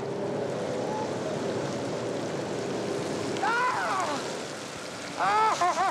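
Steady fizzing splash of a mass of herring churning the surface inside a closed purse seine, over a steady boat-engine hum that fades out about halfway. Loud bird calls break in as short arching cries, once near the middle and in a quick series near the end.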